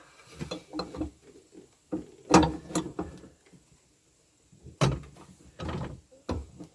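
Scattered clicks, knocks and rattles of parts and hand tools being handled while a wash bottle bracket is refitted in an excavator cab, with a quiet spell in the middle.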